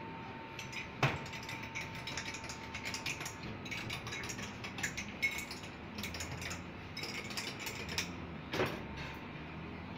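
Rapid, irregular clinking of a metal spoon against glass mugs of tea as they are stirred, with a sharper knock about a second in and another near the end.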